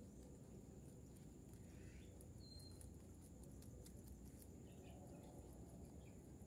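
Near silence: faint outdoor background with a thin steady high tone, scattered soft ticks, and one brief high chirp about two and a half seconds in.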